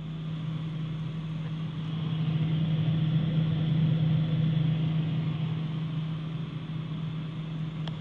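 Samsung refrigerator running with a steady low hum, heard at the vented back panel inside the compartment. The hum swells louder through the middle and eases off again near the end.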